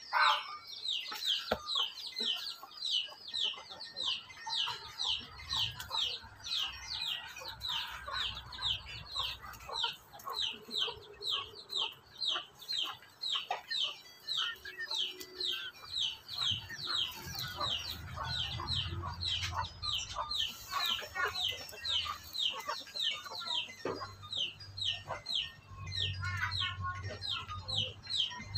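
Chickens feeding: a chick peeping nonstop in short, high, falling peeps, about four a second, over soft clucks and sharp pecking taps on concrete.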